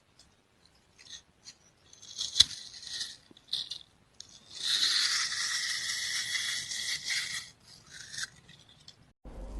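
Short high-pitched scraping and rasping strokes with a sharp click about two and a half seconds in, then one longer steady scrape lasting about three seconds, and a few more short strokes.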